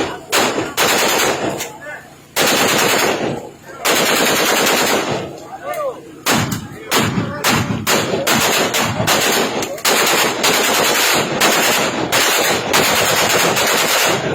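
Gunfire: long rapid bursts of automatic fire mixed with single shots, going almost without a break, with short lulls about two seconds in, about four seconds in, and between five and six seconds in.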